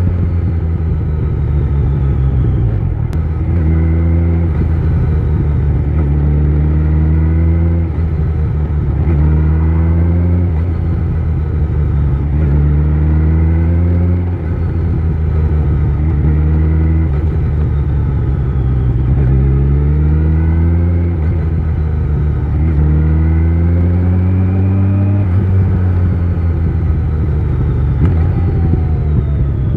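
Kawasaki Z900 inline-four motorcycle engine with an Akrapovic exhaust under way, its revs climbing and dropping back again and again as it works through the gears, over a steady low rumble.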